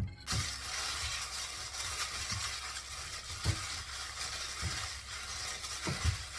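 Food sizzling in a frying pan, a steady hiss, with a few dull knocks of a utensil or the pan at uneven intervals.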